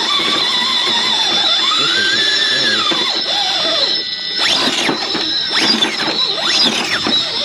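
Electric motor and gear drive of a scale RC rock crawler whining while it crawls over rock. The pitch rises and falls with the throttle: one slow sweep up and down, then several quick steep sweeps in the second half.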